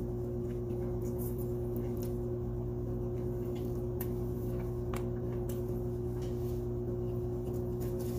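Eating with the hands: scattered faint mouth clicks and smacks from chewing and licking fingers, over a steady low hum.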